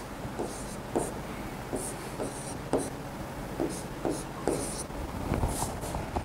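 Stylus writing on an interactive whiteboard screen: short scratchy strokes and light taps, one or two a second, as a chemical structure is drawn, over a steady low hum.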